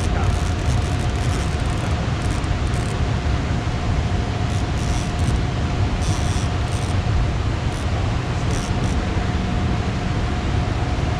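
Steady roar of fast, rain-swollen river water rushing below a low dam, with a few faint light clicks.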